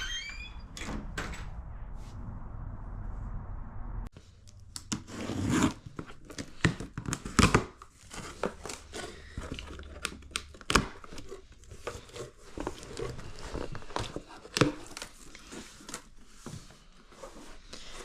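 A cardboard vacuum-cleaner box being opened and unpacked: packaging rustling and tearing, with many sharp knocks and thumps as parts are handled.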